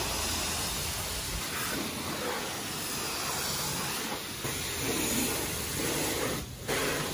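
High-pressure water jet from a self-service car wash spray wand hissing steadily as it rinses a car's body and wheels, with a brief dip about six and a half seconds in.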